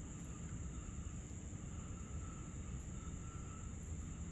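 Steady high-pitched drone of night insects, with a fainter intermittent trill, over a low rumble of background noise.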